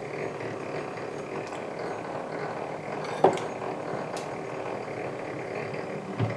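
Hand-cranked model walking-beam conveyor running slowly: a steady whir and rattle from its roller chain drive and reduction gears. A sharp clack comes about three seconds in, and a duller knock near the end.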